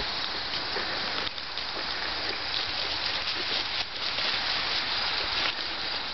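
Steady crackly rustling of movement through grass and fallen dry leaves, with faint scattered ticks, as two dogs pull ahead on leashes.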